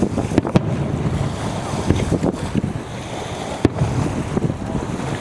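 Strong wind buffeting the microphone in gusts, with a handful of sharp bangs from fireworks shells bursting through it.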